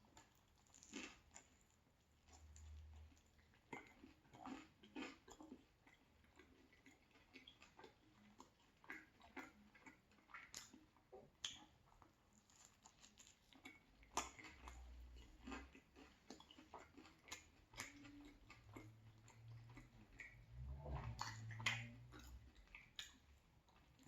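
Faint, close-miked chewing of a pizza slice with a crunchy crust: scattered small crunches and wet mouth clicks.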